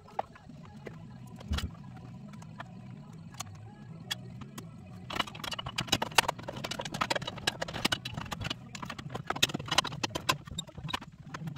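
Hands working inside a 1990 Dodge Grand Caravan's dashboard: a few scattered clicks, then from about five seconds in a dense run of rapid, irregular clicking and rattling of dash parts, over a low steady hum.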